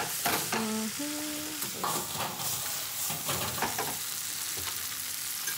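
Spinach shoots sizzling in butter in a frying pan as they wilt down, stirred with a utensil that clicks against the pan over roughly the first four seconds.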